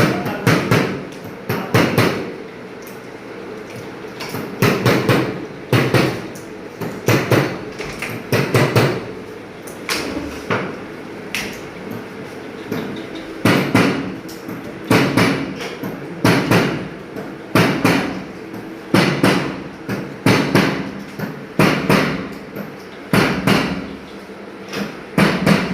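Repeated hammer blows, struck in quick runs of a few strikes with short pauses between, each with a brief ringing.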